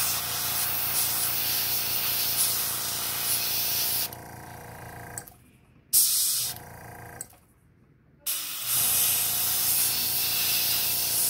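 Airbrush spraying paint, a steady hiss of air run at about 25–27 PSI. The spray runs for about four seconds, drops off and stops, gives one short burst near the middle, then starts again for the last three seconds.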